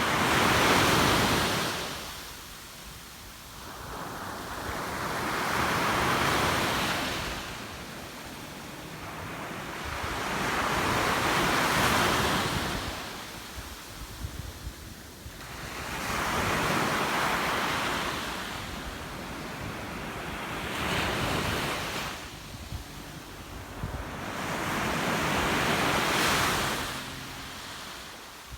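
Sea waves breaking in surf: six swells, one about every five seconds, each rising to a rush and washing back down.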